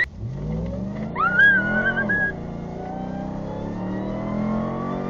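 Truck engine accelerating, its pitch climbing over several seconds, with a brief high squeal about a second in.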